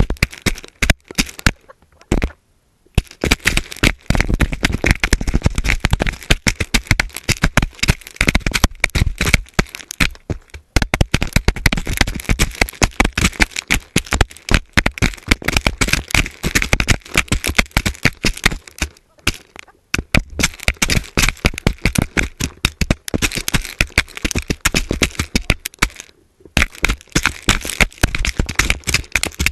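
Chickens pecking scratch grains right at a GoPro camera: rapid, irregular clicks of beaks striking the grain and the camera housing, with a few short pauses.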